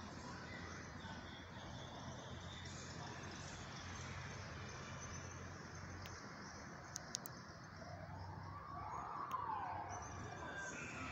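Faint outdoor town ambience at dusk: a steady distant hum and hiss. Two sharp clicks come about seven seconds in, and about nine seconds in there is a short call that rises and falls in pitch.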